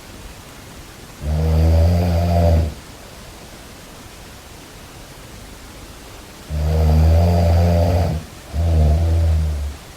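Snoring: three low, loud snores, one about a second in and two close together in the second half, the middle one the longest.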